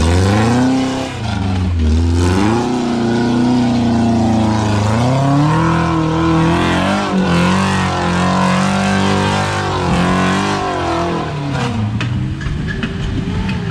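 Off-road 4x4's engine revving up and down again and again, its pitch rising and falling every couple of seconds.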